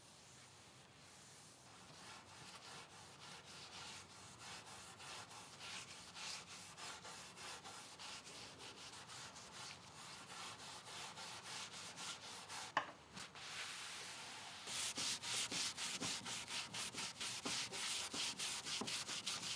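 Rag scrubbing back and forth on wood, wiping off finish that chemical stripper has loosened, in quick strokes of about four a second. The strokes grow louder for the last few seconds, and there is a single sharp click about 13 seconds in.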